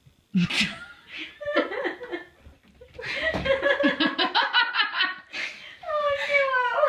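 A person laughing hard. Rapid bursts of laughter start about three seconds in, and the laughter ends on a long falling note.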